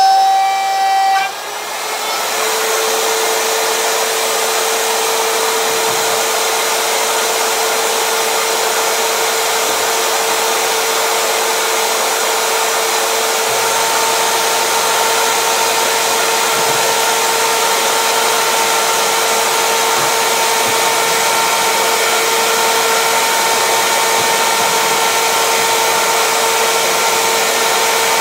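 Electric wood router in a router table running loud and steady while routing a slot in a pine board. Its whine drops in pitch about a second in, then holds steady, and a second, higher tone joins about halfway through.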